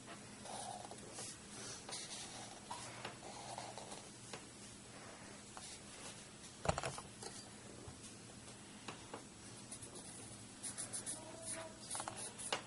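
Faint strokes of a black marker on paper while thick outlines are inked, with one sharp knock about halfway through and a quick run of clicks near the end.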